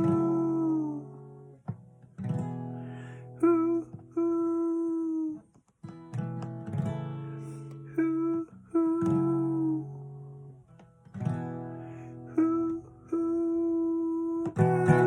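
Acoustic guitar playing an instrumental passage: chords struck one after another and left to ring out.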